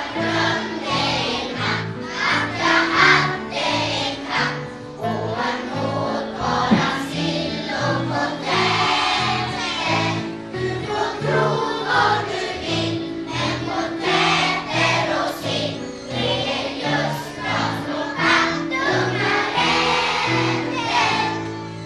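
A mixed choir of young children and adults singing a song together over instrumental accompaniment with a steady low note pattern. The music dies away near the end.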